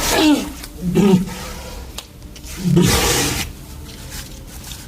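Star Wars creature vocal effects: a pitched moan falling in pitch at the start, a short growl about a second in, and a longer, rougher roar about three seconds in.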